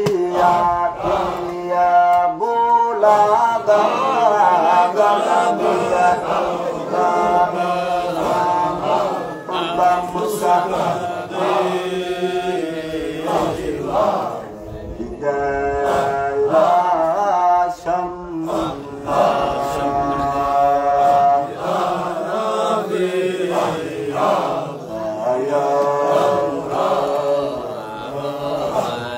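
Men chanting a Qadiriyya Sufi dhikr, led by one singer through a microphone in long, wavering sung lines.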